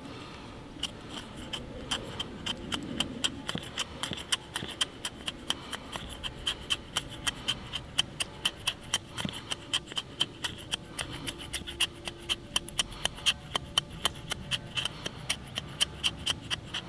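Fiskars Norden N10 axe blade scraping fine shavings off wood as fire tinder, in quick, even, repeated strokes, roughly two to three a second.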